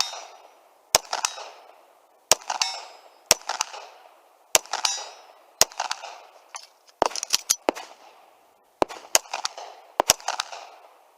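Handgun shots fired during an IPSC course of fire: single shots about a second apart, then quicker pairs and triples in the second half, each shot followed by a long fading echo.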